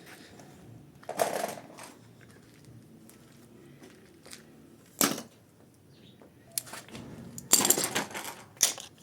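Scattered metallic clinks and clatter: a short rattle about a second in, a single sharp click near the middle, and a longer run of clinking near the end.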